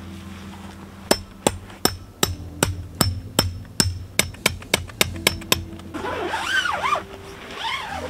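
Hammer driving a tent peg into packed dirt: about fifteen sharp strikes, each with a brief ring, quickening from about two to four a second and stopping about five and a half seconds in.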